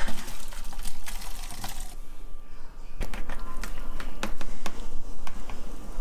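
Rapid clicking and clatter of kitchenware as a spatula scrapes cooked cubed chicken from a pan into a plastic colander, then the drained chicken is tipped from the colander into a bowl. There is a short lull a little before halfway.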